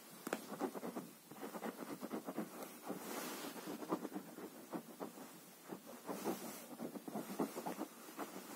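A fabric bedspread being scratched and rustled in quick, irregular strokes as a tabby cat is played with on it.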